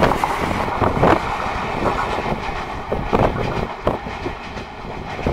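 Indian Railways passenger coaches rolling along the track, wheels knocking irregularly over rail joints, with wind noise on the microphone.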